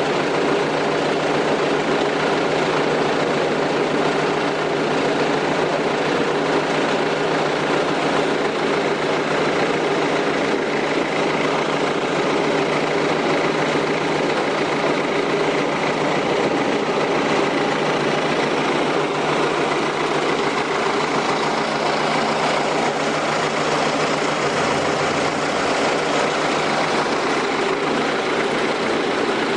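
An engine running steadily at an unchanging pitch, with no breaks or knocks.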